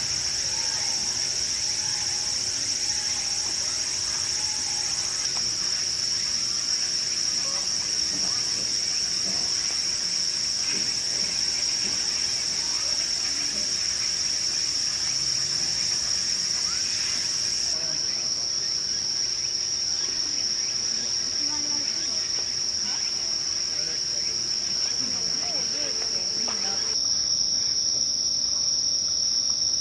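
Steady high-pitched chorus of night-singing insects, an unbroken shrill drone.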